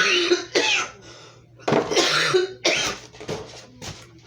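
A person coughing in a series of bursts: two short coughs, then a longer bout about a second and a half later.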